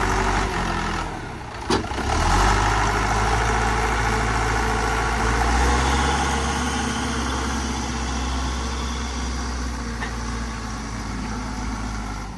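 A vehicle engine runs steadily, its pitch shifting briefly about a second and a half in. A single sharp click comes just before two seconds.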